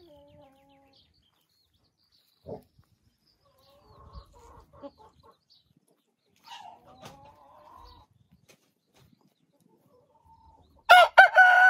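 White Sulmtaler hens clucking softly now and then. Near the end a White Sulmtaler rooster starts a loud crow: a few short notes running into a long held call.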